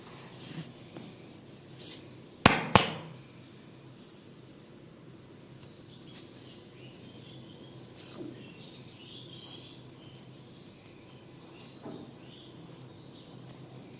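Hands massaging and scratching a head and skin, a soft, quiet rubbing, broken about two and a half seconds in by two sharp, loud snaps in quick succession.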